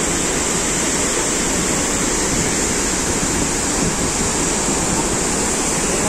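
Large waterfall's steady rush of heavy falling water and spray, an even roar with no break.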